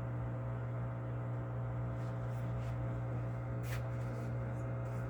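LG Inverter Turbo Drum washing machine running under test with a steady low electrical hum, with a few faint ticks and one sharper click late on.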